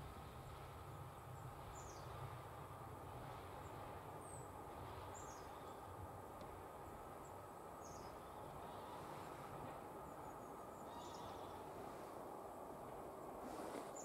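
Faint outdoor background noise with a short, high, falling bird call every two to three seconds, and a rising rush of noise near the end.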